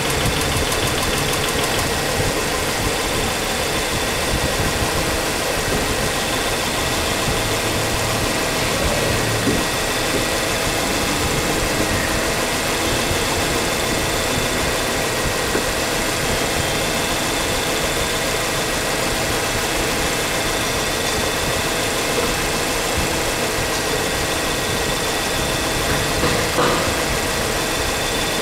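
Ford Ranger engine idling steadily, with the loud engine noise that is taken to come from the lifters. One brief knock near the end.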